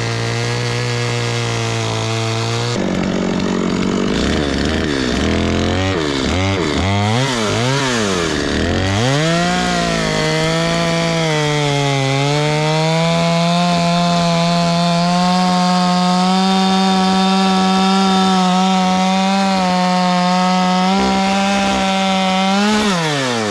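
Stihl two-stroke chainsaw: after a short steady run it is revved up and down several times in quick succession, then held at full throttle cutting through a log, the pitch sagging a little under load about twelve seconds in and falling away near the end as the throttle is released.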